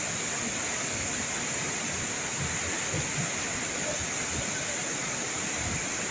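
Madhabkunda waterfall in monsoon flood, a muddy torrent swollen by hill runoff pouring over the cliff and rushing steadily, with a steady high hiss over it.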